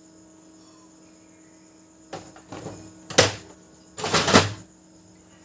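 A few sharp plastic knocks and clatters, the loudest about three seconds in, followed by a longer rattling clatter about a second later, over a low steady hum. The knocks come from handling a Brother DCP-L2540DW laser printer as it is readied for a test print.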